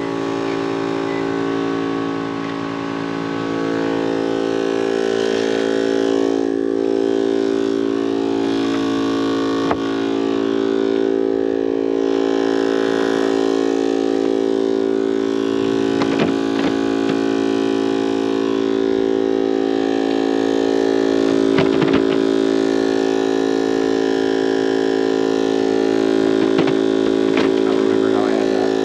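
Portable air compressor running steadily while inflating a freshly plugged tire, with a few brief clicks.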